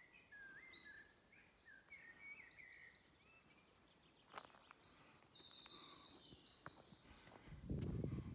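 Songbirds singing in the hedgerows and trees: several overlapping songs of quick, repeated high notes and short chirps. A low rumbling noise comes in near the end.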